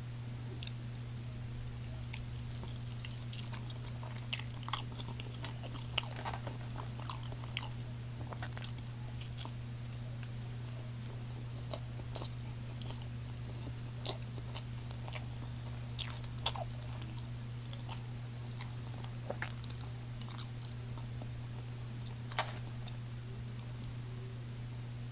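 Close-up chewing and biting of McDonald's burger steak: irregular sharp mouth clicks and smacks, thickest in the first half and around the middle, over a steady low hum.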